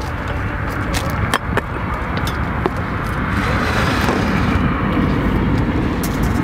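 Steady low rumble with a few light clicks and taps as items are handled on a tabletop beside a small gas stove and its canister.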